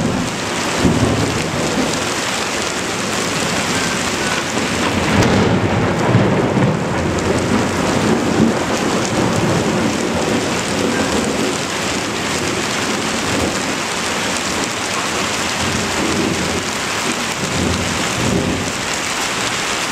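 Thunderstorm: steady rain falling with thunder rumbling through it, swelling a few times.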